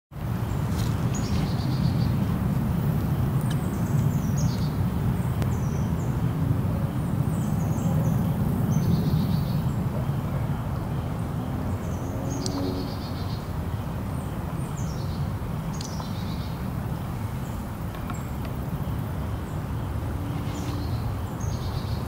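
Small shallow forest stream flowing, a steady low rush. Over it, a bird repeats short descending chirps every second or two.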